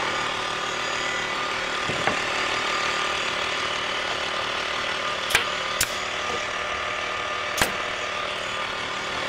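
Small portable air compressor running steadily, building tank pressure close to its 100 psi cut-off. Three sharp clacks from a pneumatic nailer being fired sound over it, a pair about five and a half seconds in and one more near the end.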